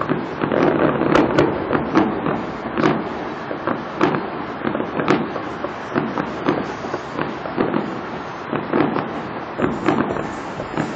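Fireworks display going off in quick, irregular succession: sharp bangs and crackles, the louder reports about once a second, over a continuous rumble.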